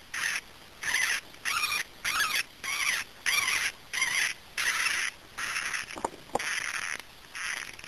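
Five-day-old hamster pups crying: a steady run of short, high-pitched squeaks, about two a second, each wavering in pitch.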